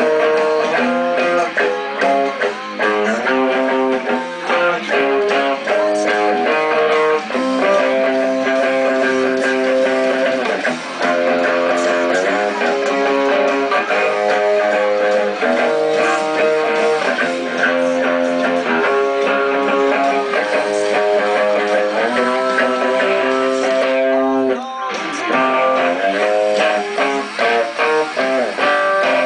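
Electric guitar playing chords, each held a second or two before the next, with a brief break about 24 seconds in.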